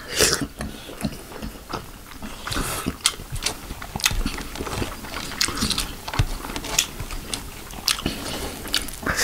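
Close-miked chewing of a steamed chicken momo, with irregular wet mouth clicks and smacks; fingers mixing yellow rice on a steel plate add soft sounds.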